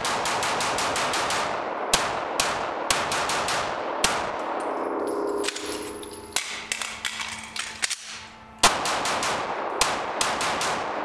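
9mm Glock pistol fired in fast strings of shots, each crack trailing off in the echo of an indoor range, with a lull near the middle before another rapid string.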